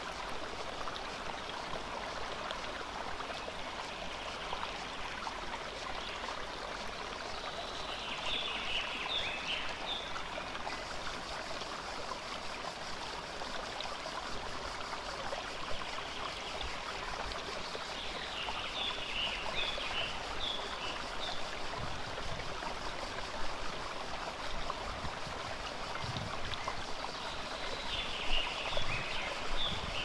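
Shallow stream running over stones and gravel, a steady rush of water.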